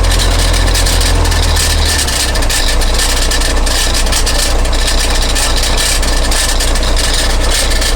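Vehicle engine and drivetrain running steadily with a strong low drone under a dense hiss; the drone drops a little about two seconds in. The running noise is the one being checked as an abnormal transmission sound.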